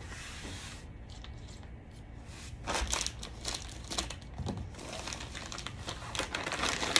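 Clear plastic sleeve crinkling and rustling as it is handled and worked off a traverse rod. The rustles come irregularly, starting a little over two seconds in.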